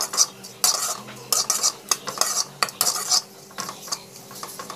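Spatula stirring and scraping food around a pan in quick strokes, a few a second, thinning out near the end.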